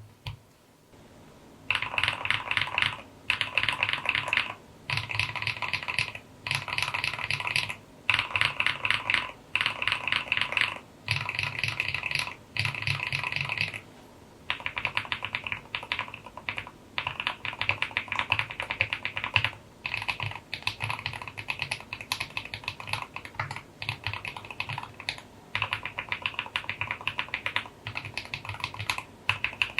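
Typing on mechanical keyboard switches, Gateron Quinn heavy tactile and KTT Wave Rider, in bursts of rapid keystrokes with short pauses between them. The keystroke pattern changes about halfway through, to longer, steadier runs of typing.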